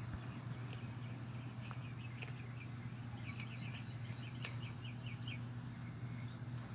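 Small birds chirping, with a quick run of chirps from about halfway through, over a steady low hum. A few faint sharp clicks stand out.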